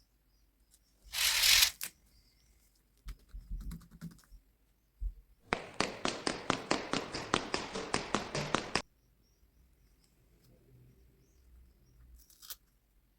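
Paper being handled and worked: a short rustle about a second in and a few light clicks, then about three seconds of rapid, rhythmic scratching or clicking strokes.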